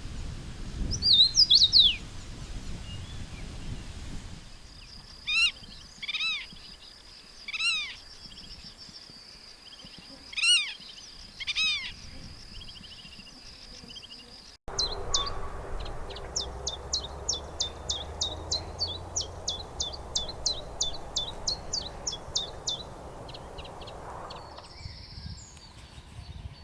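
Birds calling in two separate recordings. First come a handful of separate, loud down-slurred calls. After an abrupt change, a fast run of short, high-pitched notes repeats about two or three times a second.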